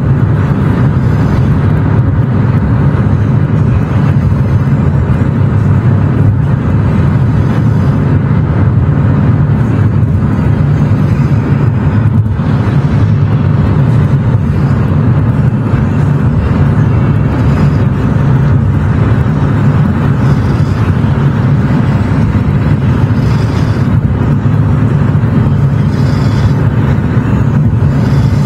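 Car driving along a road: steady, loud engine and tyre noise with a constant low rumble.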